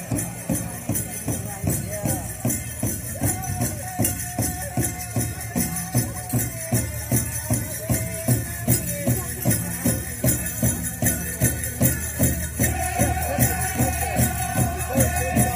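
Pow wow drum song: a big drum struck in a fast, even beat, with high held singing voices over it in places.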